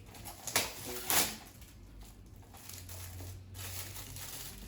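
Gift wrapping being crinkled and torn open: two short bursts of crackling paper about half a second and a second in, then fainter rustling as the packaging is handled.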